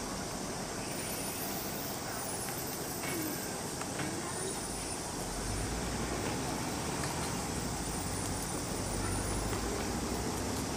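Steady outdoor background noise with a low rumble that grows a little stronger partway through, and faint distant voices.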